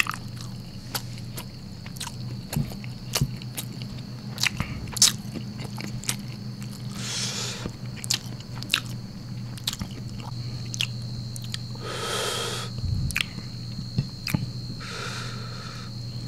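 Close-miked mouth sounds of a person eating rice with rendang and squid by hand: wet chewing with many sharp lip smacks and clicks at an uneven pace, and three short rushes of noise. A steady low hum runs underneath.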